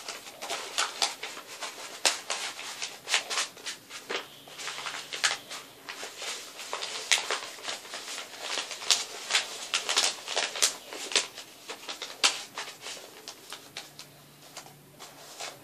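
A sheet of paper rustling and crinkling as it is rolled up by hand into a tight tube, a run of irregular sharp crackles that thins out near the end.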